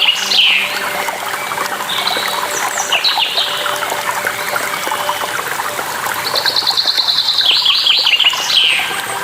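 A songbird sings the same phrase three times, a fast high trill breaking into a few falling notes, over the steady rush of running water.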